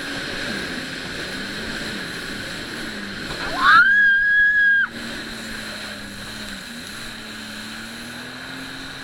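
Jet ski engine running at speed with a steady high whine. About three and a half seconds in, a loud whine rises sharply, holds for about a second, then cuts off suddenly.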